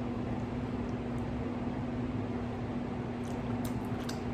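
Steady hum and hiss of an air conditioner running, with a constant low tone, and a few faint clicks near the end.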